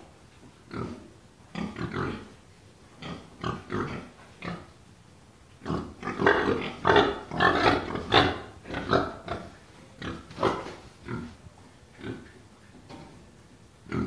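Domestic pigs grunting: short grunts every second or so, with a quick run of louder, closer-spaced grunts about halfway through.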